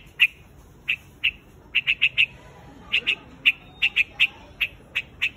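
White-headed quạch mốc bird giving a rapid series of short, sharp call notes, about seventeen in all, some in quick clusters of three or four: its flock-gathering call.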